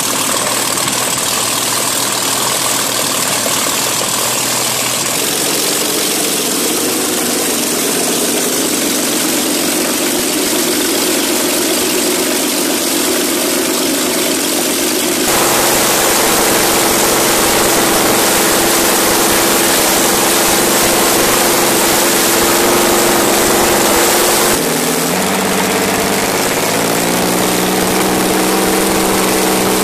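Rolls-Royce Meteor 27-litre naturally aspirated V12 tank engine running on short open exhaust stubs, with the revs rising near the end.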